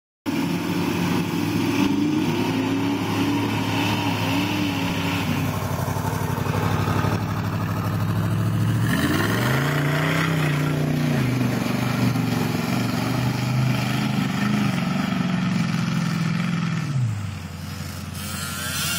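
Lifted Chevy mud truck's engine revving hard, its pitch rising and falling as the throttle is worked, with one long high rev from about nine seconds in that drops off near the end.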